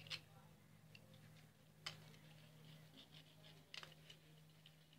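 Near silence with three faint, short clicks about two seconds apart: a small cutting tool working at the top of a stripped AA battery to free its graphite rod.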